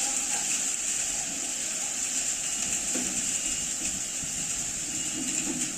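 Heavy rain pouring down onto a road and pavement, a steady, even hiss of falling and splashing water.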